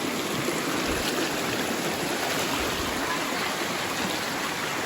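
Steady rush of flowing stream water, with no separate splashes standing out.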